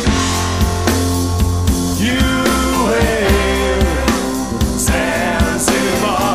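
Blues band playing: drums and bass under a lead line that bends in pitch.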